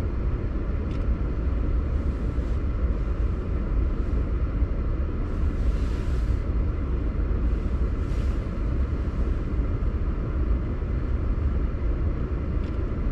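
Steady low rumble of a car driving slowly, heard from inside the cabin: engine and tyre noise. Two brief hissing swells rise over it about six and eight seconds in.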